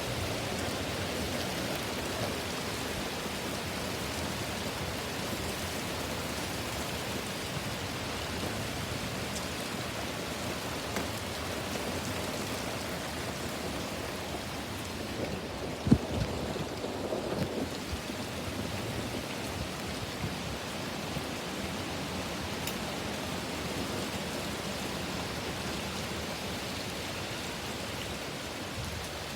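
Heavy rain pouring steadily in strong wind. A sharp knock stands out about halfway through, followed by a few fainter knocks.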